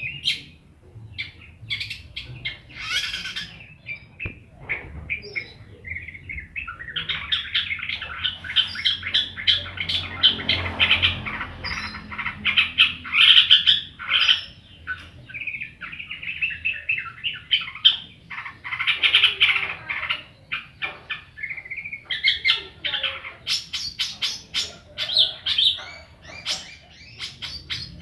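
Long-tailed shrike (cendet) singing a long, fast, chattering song of varied calls almost without pause. Near the end it breaks into runs of rapid, even ticks.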